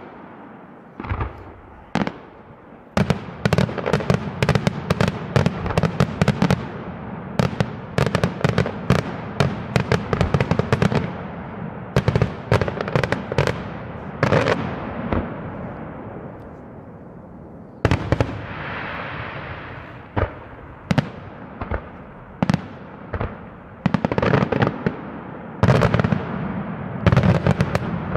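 Daylight fireworks display: aerial shells bursting overhead in rapid volleys of sharp bangs and crackles. The volleys come thick from about three seconds in, thin out past the middle, then pick up again near the end.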